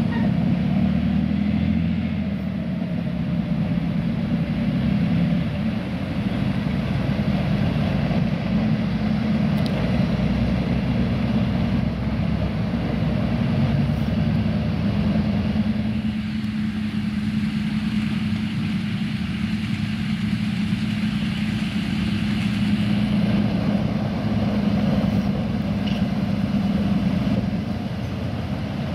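Heavy military vehicle engine running steadily, with a constant low hum.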